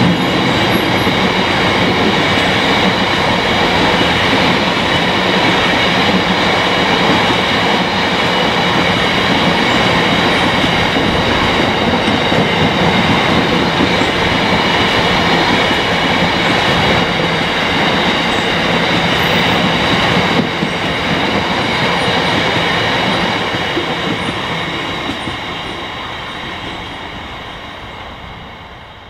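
Long train of Drax biomass hopper wagons rolling past: continuous wheel and rail noise with a steady high whine. It eases off about two-thirds of the way through, then fades as the tail of the train draws away.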